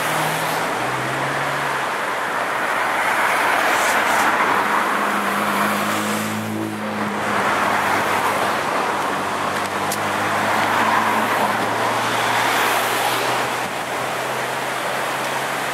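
Steady rush of swollen, fast-flowing floodwater mixed with traffic on a wet road: the tyre hiss and engine hum of cars passing by, the hum rising and falling as they come and go.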